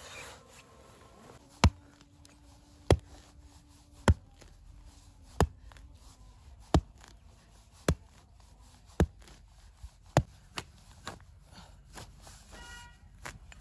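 A hand tool chopping in steady strokes: about nine sharp strikes, roughly one every second and a quarter, then a few lighter taps near the end.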